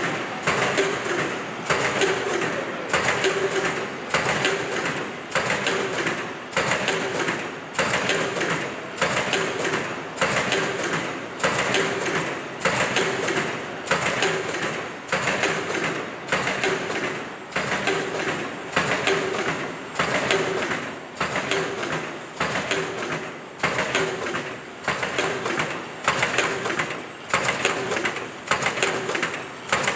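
Fully automatic flat face-mask machine running in production, its feed, welding and cutting stations clattering in a steady repeating cycle of about one beat a second, with a thin high whine joining about halfway through.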